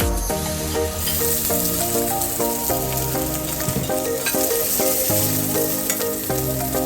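Food frying on a hot cooking surface: a steady sizzling hiss that grows fuller about a second in, heard under background music.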